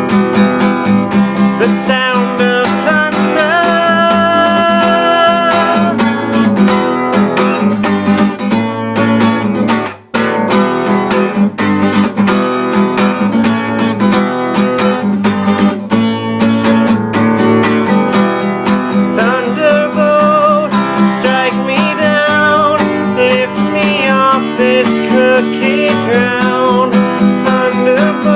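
Acoustic guitar playing an instrumental passage: steady strummed chords with a wavering melodic line over them. The sound drops out briefly about ten seconds in.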